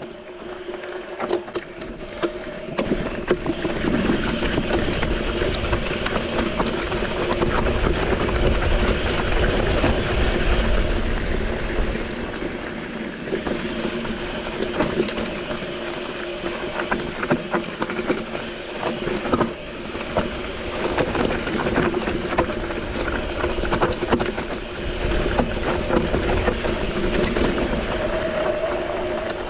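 Mountain bike descending a rocky trail of loose volcanic rock: tyres grinding and rattling over the stones, with many small knocks from the bike and a steady hum underneath.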